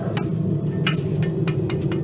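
Blacksmith's hammer striking a hot steel horseshoe on the anvil: about seven quick, uneven blows, a few with a short metallic ring, over a steady low rumble.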